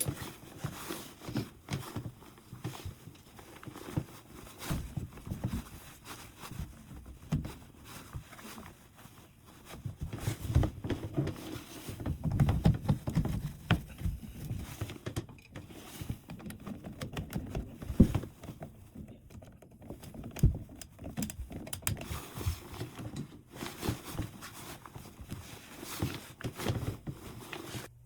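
Irregular taps, knocks and rubbing of hands and tools at work, busiest about a third of the way in.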